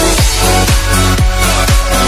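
Electronic dance music with a steady kick drum about twice a second. A heavy bass line comes in at the start.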